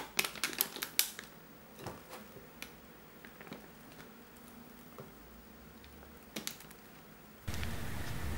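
Plastic piping bag crinkling and clicking as a spatula scrapes thick green tea batter into it, busiest in the first second, then a few scattered small ticks. Near the end a steady background hiss switches on suddenly.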